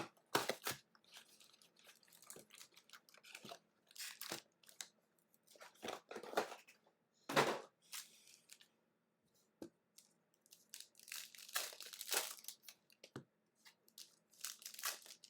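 Packaging being torn open and crinkled by hand: irregular bursts of tearing and rustling with pauses between them.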